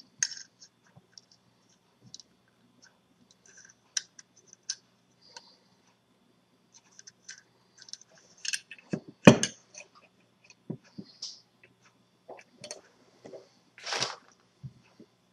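Handling noise from a small metal PCB holder: scattered clicks and light scrapes as its spring-loaded sliding clamp and plate are worked in the hands. A louder knock comes about nine seconds in, and another clatter around fourteen seconds.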